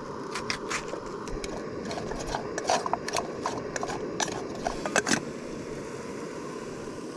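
Knife chopping an onion: a run of irregular sharp clicks for about five seconds, then stopping, over a steady hiss.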